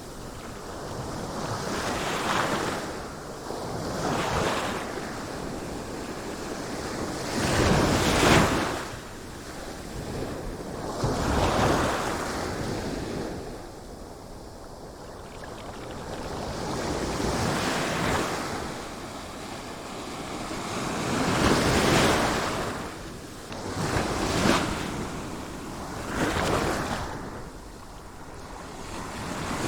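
Sea waves washing onto a shore, the surf swelling and falling back every few seconds, with the biggest surges about a quarter of the way in and again about three quarters of the way through.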